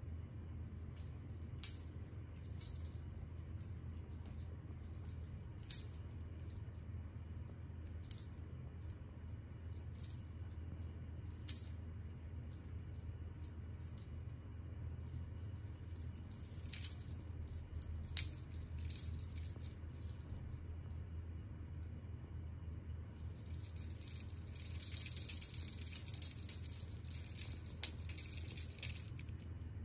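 Small bell on a cat's feather wand toy jingling in short bursts as the wand is flicked, then jingling continuously for several seconds near the end. A few sharp taps and a steady low hum sound underneath.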